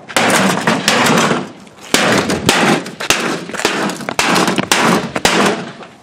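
A baseball bat smashing into a microwave oven again and again, with a heavy crashing hit about once a second.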